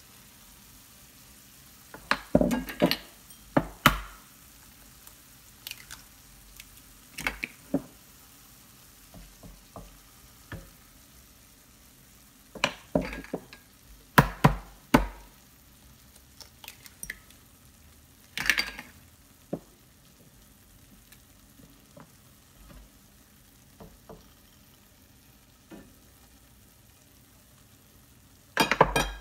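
Mushrooms and tomatoes sizzling faintly in a frying pan as eggs are added, with scattered sharp taps and knocks from eggs being cracked and the bowl and pan being handled.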